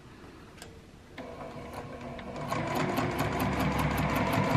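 Domestic sewing machine starting up about a second in and speeding to a steady run, with a fast regular clatter of stitches as it sews a quarter-inch seam through pinned quilt pieces.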